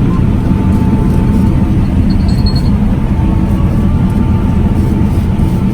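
Combine harvester running steadily under load, a loud low rumble of engine and threshing machinery heard from inside the cab. A faint steady whine runs through it, and a short high beep sounds about two and a half seconds in.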